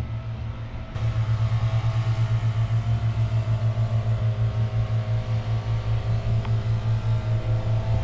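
A motor running steadily with a low drone that throbs evenly several times a second, growing louder about a second in.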